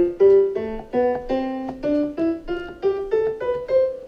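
Software grand piano in Ableton Live 10 Lite, played from a Novation MIDI keyboard: a string of short notes and two-note chords, about three a second.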